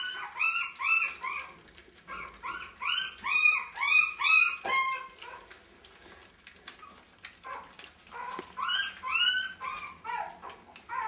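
Three-week-old miniature dachshund puppies crying: high-pitched yelping whines in quick runs of several, in three bouts with short pauses between.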